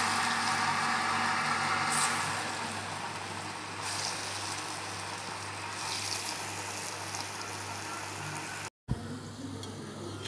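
Falafel balls deep-frying in hot oil: a steady sizzle with a low hum underneath, cut off for an instant near the end.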